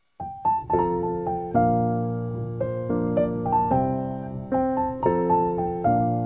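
Background piano music, a gentle melody over chords, starting suddenly a moment in after silence.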